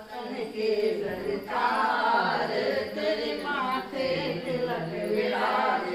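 A group of voices singing a devotional chant, a hymn with a wavering, sung melody.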